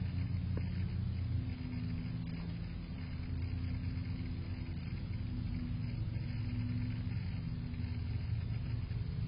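Steady low mechanical rumble with a faint droning hum, like a running engine or road traffic, with no distinct events.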